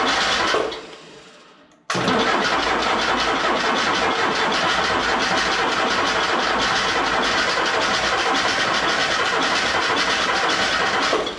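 An engine running with a fast, even beat, stopping abruptly and starting again: it dies away shortly after the start, cuts back in at full level about two seconds in, runs steadily, and stops sharply near the end with a short echo.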